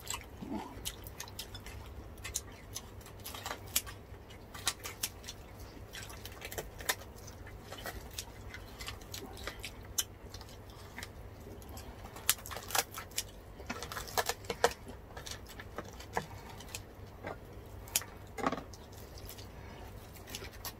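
Kitchen scissors cutting through crackly deep-fried pork skin: a run of irregular sharp crunches and snips.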